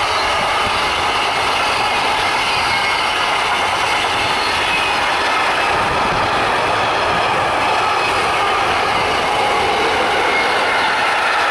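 Wagons of a long mixed freight train (flat wagons, tank wagons and covered coil wagons) rolling past close by. Their steel wheels on the rails make a steady, loud rolling noise, with a thin high whine running over it.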